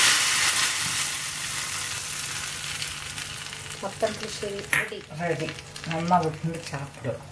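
Hot coconut-oil tempering of mustard seeds, curry leaves and dried red chilli sizzling as it hits the yellow-pumpkin pulissery in a stone pot. The sizzle is loud at first and dies away over about four seconds.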